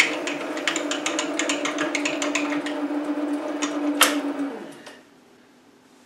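SC2 mini lathe running with an 8.7 mm twist drill boring into a spinning Delrin workpiece, the motor's steady hum overlaid with rapid irregular clicking from the cut. This is drilling the tapping hole for a 1/8 in BSP thread. A sharp click comes about four seconds in, then the motor winds down, dropping in pitch, and stops.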